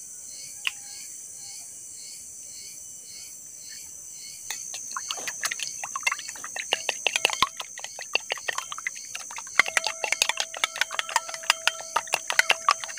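Metal spoon beating eggs in a ceramic bowl: rapid, irregular clinks and scrapes against the bowl starting about four and a half seconds in. Steady high insect chirring underneath.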